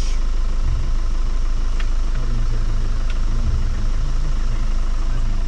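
Jeep engine running with a steady low rumble, plus a couple of faint clicks.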